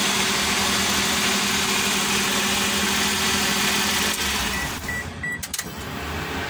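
Daihatsu Hijet's fuel-injected engine idling steadily, freshly tuned with its tappets adjusted and injectors cleaned, and running smoothly. The steady engine note drops away about four seconds in, and three short high beeps follow.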